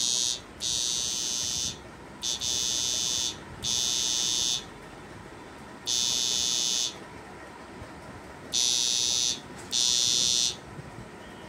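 Homemade 1500 W electric fishing machine's inverter buzzing with a high-pitched whine in six on-off bursts, each about a second long or less, while it drives a test load.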